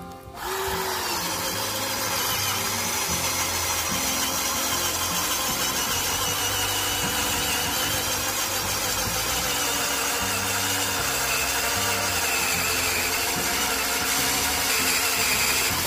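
21 V Dekton D21 cordless drill in its low-speed, maximum-torque gear, driving a 20 mm × 250 mm wood-boring bit into hardwood. The motor spins up about half a second in and then runs steadily under load, with the noise of the bit cutting wood.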